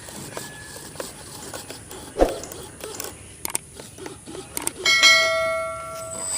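Light clicks and a knock, then a single bell-like ding that rings out and fades over about a second and a half.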